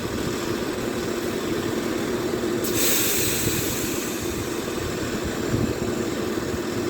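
Class 171 Turbostar diesel multiple unit with its engines running steadily. About three seconds in a sudden loud hiss starts, then fades to a fainter hiss that carries on.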